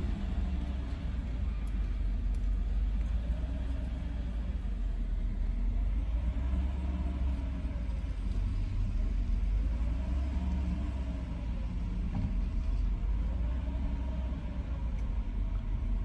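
Mercedes-Benz 420SEL's V8 idling at about 1000 rpm from a cold start, heard from inside the cabin: a steady low drone with a faint tone that rises and falls about every two seconds. The owner says it is idling wrong.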